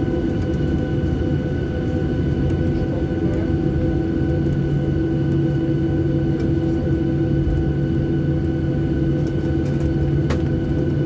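Jet airliner's engines at takeoff power heard from inside the cabin: a loud, steady rumble with a steady whine over it, and a lower hum coming in about four seconds in. A single sharp click near the end.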